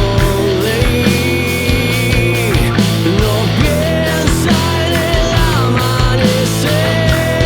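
Rock band playing an instrumental passage: electric guitars playing bent notes over bass guitar and drums, settling into a held guitar note near the end.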